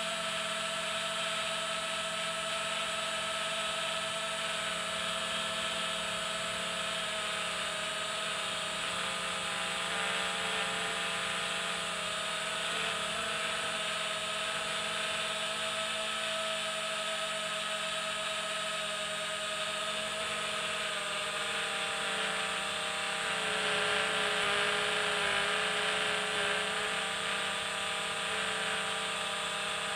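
Electric motors and propellers of a small remote-controlled aircraft running steadily in flight, heard from on board: a whine made of several close pitches over a rush of air, dipping slightly in pitch and getting a little louder about 23 seconds in.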